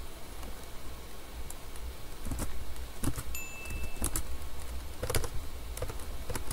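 Computer mouse and keyboard clicks, about half a dozen scattered ones, over a steady low hum. A brief high tone sounds about three and a half seconds in.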